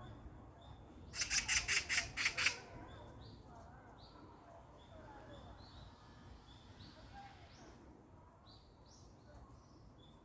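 Wild birds calling. About a second in, a harsh rattling call of about eight rapid notes is the loudest sound, while small birds repeat short high rising chirps throughout.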